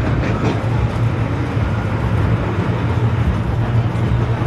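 Fendt 1050 Vario's six-cylinder diesel running hard at a steady pitch as the tractor pulls the sledge.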